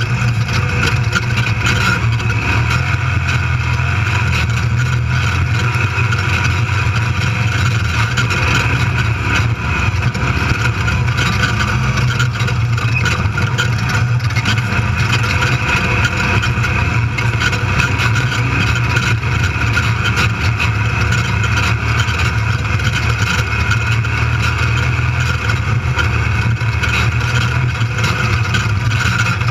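Desert race vehicle's engine running hard at a steady pace, heard from inside the cockpit, under a constant loud rumble and rattle from the rough course.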